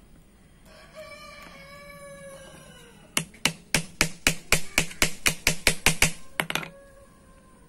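Hammer tapping a steel rivet punch in quick blows, peening a rivet to fix a new oversize lining to a drum brake shoe. About fifteen sharp metal strikes come at about five a second, then two lighter taps. Before the hammering, a long falling call sounds faintly in the background.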